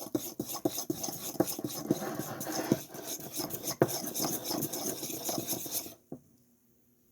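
Slime being stirred in a bowl: a utensil scraping and clicking against the bowl in quick, uneven strokes as glue and activator are mixed, stopping about six seconds in.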